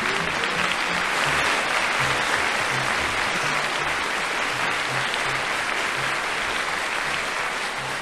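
Studio audience applauding, a steady clatter of clapping, with the show's closing theme music playing low underneath.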